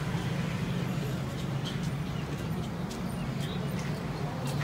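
Street ambience: a steady low hum of traffic, with a few short, faint high chirps scattered through.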